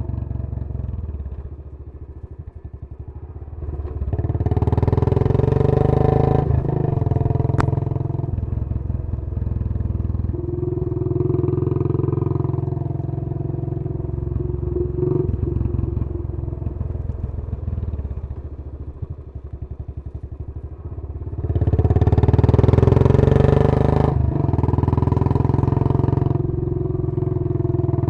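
Royal Enfield Bullet 500's single-cylinder engine running through a Punjab long bottle exhaust while riding. The throttle is rolled off several times, and each time the separate exhaust beats can be heard. It opens up again about four seconds in and again past twenty seconds, with the loudest pull near the end.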